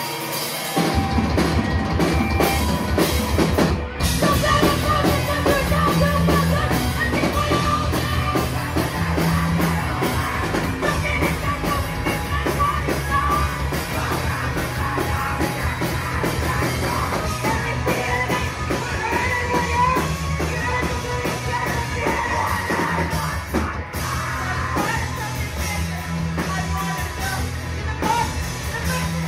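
Live rock band playing loud: distorted electric guitars, bass and drum kit with vocals. The full band crashes in about a second in after guitar alone.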